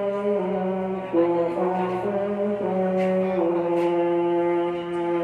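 Background music: sustained brass-like notes changing pitch every second or so, with a slow melody.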